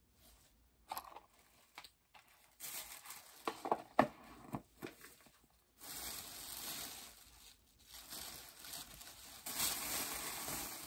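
A plastic shopping bag rustling and crinkling in stretches as items are pulled out of it, with a few sharp clicks and knocks in the first half, the loudest about four seconds in.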